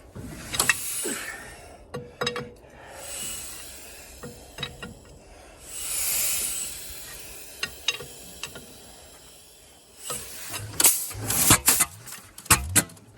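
Caterpillar Sixty crawler's engine being turned over by hand without catching: irregular clanks and clicks with several rasping hisses, the busiest stretch near the end.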